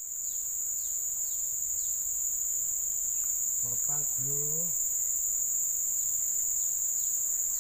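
Insects droning steadily at a high, even pitch, with a brief faint voice about halfway through.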